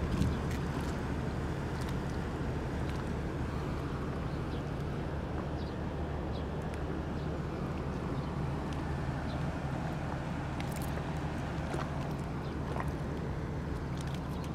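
A steady low engine hum that holds an even pitch throughout, with a few faint clicks and taps on top.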